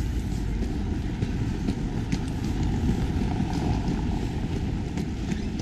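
Steady low rumble of wind buffeting a GoPro Hero 7's built-in microphone while walking, with faint footsteps on stone paving.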